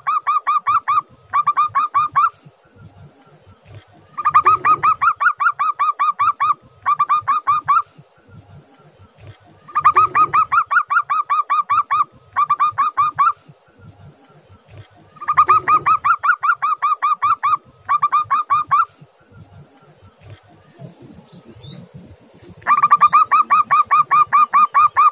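Zebra dove (perkutut) singing its staccato cooing song: each song is a long run of rapid, clipped coos followed by one or two short runs. The song repeats about every five to six seconds, five times.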